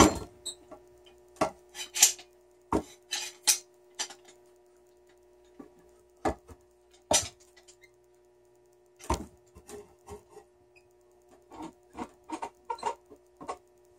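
A wood clamp being tightened and handled on a wooden pool table rail apron: sharp knocks and clicks at irregular intervals, with quiet gaps between.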